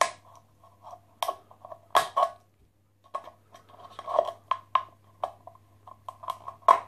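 A small metal tool clicking and scraping against a thin empty tin can as it is worked open, with irregular sharp clicks, some followed by a short metallic ring from the can.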